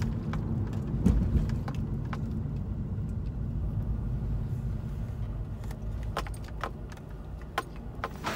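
Inside a moving car: a steady low rumble of engine and road noise, with scattered light clicks and rattles that come more often near the end.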